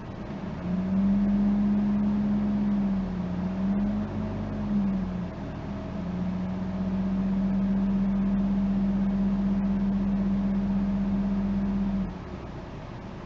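Peugeot 508 giving off a steady low droning hum that comes and goes, wavers a little in pitch, then holds for about six seconds before cutting off near the end. It is an abnormal resonance noise, as if something in the car vibrates in sympathy at one particular engine speed.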